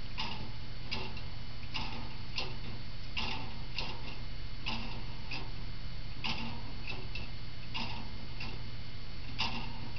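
Verge and foliot clock escapement ticking, its pallets alternately catching the crown wheel teeth as the foliot swings: sharp clicks about every 0.6 to 0.9 s in an uneven rhythm, heard over a steady low hum. The unevenness is the motion that the builder calls somewhat rough, not yet regulating smoothly.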